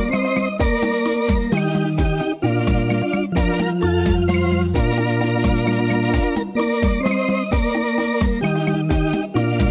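Instrumental passage of a song: an electronic keyboard playing an organ sound over a bass line and a steady beat, with no singing.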